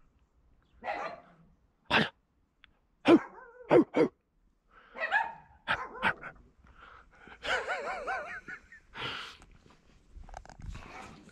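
Dogs barking excitedly in short, separate barks, several in quick succession through the first half and a longer wavering bark a little past the middle.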